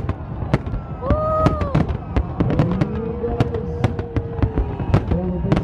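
Aerial fireworks shells bursting in quick, irregular succession: many sharp bangs and crackles, with a steady low rumble underneath.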